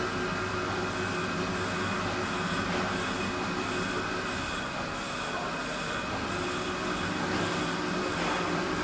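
1985 Maho MH 600 E milling machine running with its table traversing under power feed: a steady hum and whine from the drive, with a faint high chirp repeating about twice a second.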